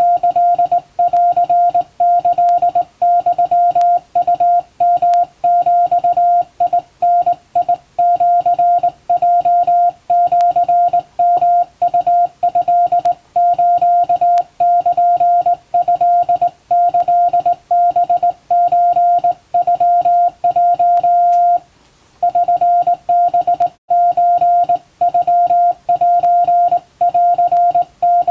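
A single steady beep tone keyed on and off in the long and short marks of Morse code, hand-sent on a vertical straight key as a Japanese wabun telegram. There is one brief pause about two-thirds through.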